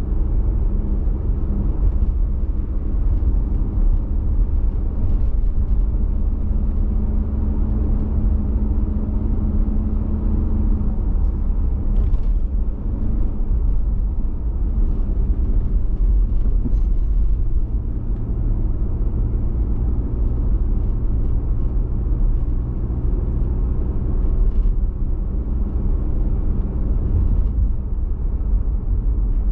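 Car engine and tyre noise heard from inside the cabin while driving: a steady low rumble with an engine hum whose pitch drops partway through.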